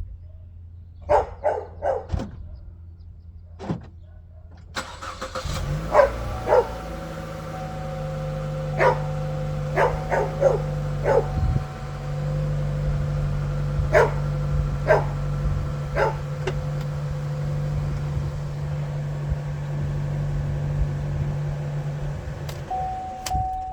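A Chevy Cruze engine starts about five seconds in, idles steadily and is switched off near the end. A dog barks repeatedly throughout.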